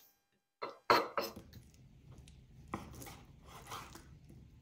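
Chef's knife cutting raw chicken thigh fillet into chunks on a wooden cutting board, the blade knocking on the board with each cut. There are a few sharp knocks about a second in, then softer slicing strokes with further knocks.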